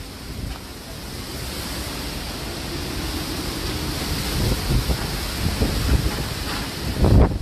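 Strong cyclone wind rushing steadily, with gusts buffeting the phone's microphone in low rumbles, the heaviest near the end.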